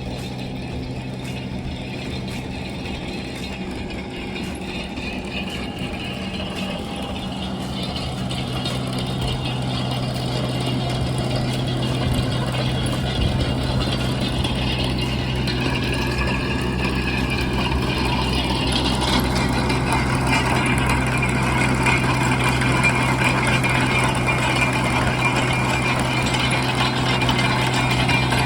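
An engine runs steadily with a low hum. It grows gradually louder through the middle of the stretch, then holds.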